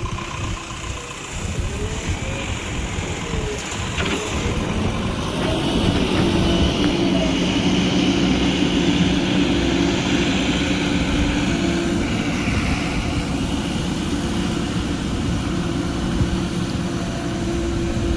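A heavy vehicle's engine running. About five seconds in it gets louder and settles into a steady, even note.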